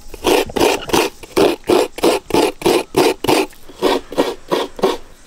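Half a coconut being scraped by hand against the serrated blade of a traditional coconut grater: steady rasping strokes, about three a second.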